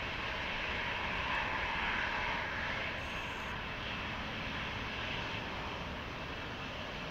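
Boeing 777-300ER's twin GE90-115B turbofans at takeoff power during the takeoff roll, a steady jet roar heard from behind the aircraft that slowly fades as it moves away.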